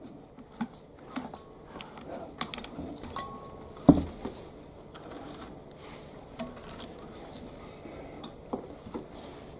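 Scattered light clicks and knocks of a Kenmore rotary sewing machine being worked by hand, its hand wheel turned to pick up the bobbin thread, with one sharper knock about four seconds in.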